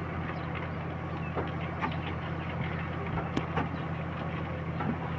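Large old stationary diesel engine with a big flywheel running at a steady speed, a low even hum, with a few sharp knocks over it.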